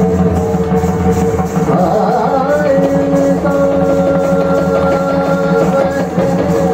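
Hindustani thumri music accompanying Kathak dance: sitar and tabla over a steady drone, with a melody line that holds one long note from about two and a half seconds in until near the end.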